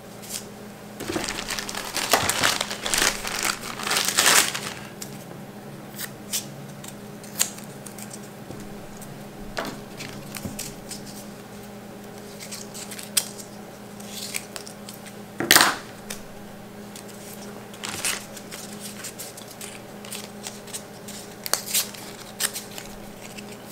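Adhesive tape peeled off a roll, a crinkling, tearing rustle for a few seconds, followed by scattered small clicks and taps of items handled on a bench, with one sharp click about fifteen seconds in.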